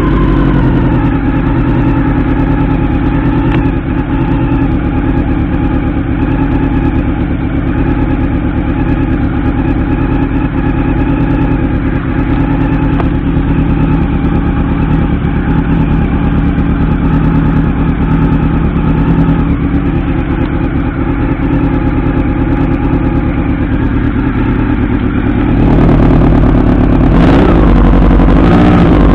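1989 Honda CB-1's 400cc inline-four engine running at a steady idle, then getting louder with a brief dip and rise in pitch near the end. The owner finds the throttle sluggish and is unsure whether the carburettor is dirty or out of synchronization.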